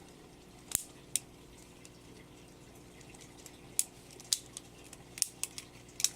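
A LEGO butterfly knife being flipped: irregular short plastic clicks and clacks as the brick-built handles swing open and shut and knock together, about nine over a few seconds.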